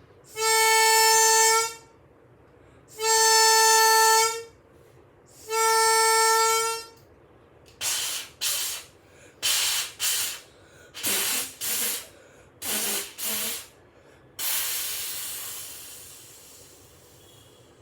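Train horn sounding three long, even blasts. These are followed by a string of short hissing bursts, mostly in pairs, and one longer hiss that fades away.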